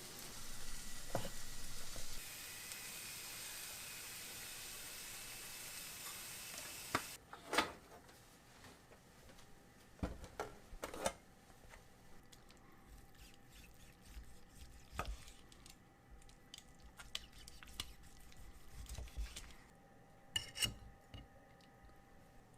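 Kitchen cooking sounds: a steady sizzling hiss that cuts off suddenly about seven seconds in, followed by scattered clinks and knocks of utensils against pans and dishes.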